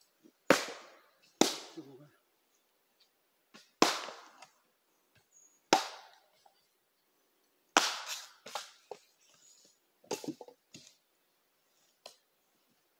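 Axe chopping into wood to split firewood: about six sharp, loud chops one to two seconds apart, with smaller knocks of wood in between.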